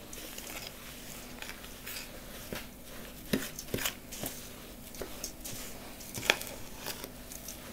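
A metal spoon stirring crumbly oat-flake, flour and butter cookie dough in a stainless steel pot: soft scraping, with scattered clinks of the spoon against the pot, the loudest a few seconds in.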